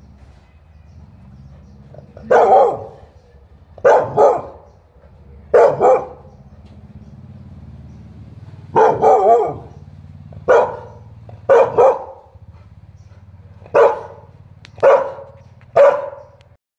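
A dog barking at a lizard it is trying to catch: about a dozen short, sharp barks, some single and some in quick pairs, with pauses of one to three seconds between them.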